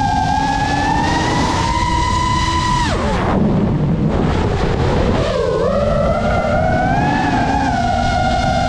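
FPV racing quadcopter's brushless motors whining, with propeller rush under them. The pitch creeps up, then drops steeply about three seconds in as the throttle is chopped for a dive, and climbs back about two seconds later as power comes on again.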